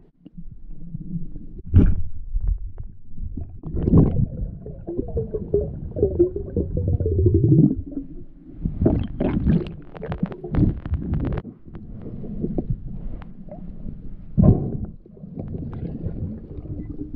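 Muffled underwater sound recorded below the surface: low rumbling and gurgling water with scattered sharp clicks and knocks, most of them in a cluster about halfway through.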